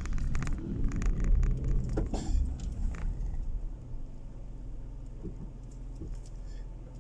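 Car cabin road noise while driving slowly on a damp asphalt road: low engine and tyre rumble with clicking and rattling for the first three seconds, then a quieter, steady rumble.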